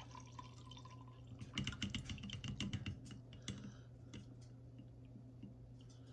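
The last of the birch polypore vodka trickling through a mesh strainer into a glass mason jar, then a quick run of clicks and clinks about a second and a half in as the tipped jar and the soaked mushroom pieces knock against the strainer and glass, with a few scattered knocks after.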